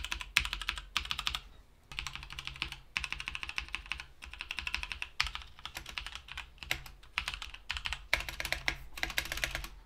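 Logitech G Pro mechanical keyboard with GX Brown tactile switches being typed on: a fast, steady stream of key clicks, with a short pause about one and a half seconds in. The keyboard sounds good, though its stabilizers need some work.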